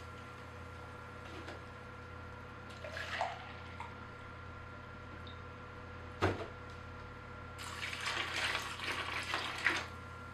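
Compost tea being poured over wood pellets and vermicompost in a container: a short splash about three seconds in, a sharp knock about six seconds in, then a longer pour lasting a couple of seconds near the end.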